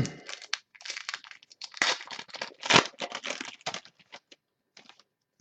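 Trading cards and their packaging being handled, giving a run of irregular crinkling, rustling and tearing sounds that thin out to a few faint ticks in the last second or so.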